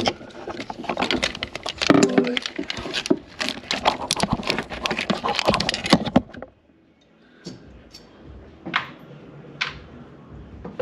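Clattering and clinking of metal parts as the Jeep's stock ignition coil is lifted out with its mounting bolt, dense and irregular for about six seconds, then a few separate clicks.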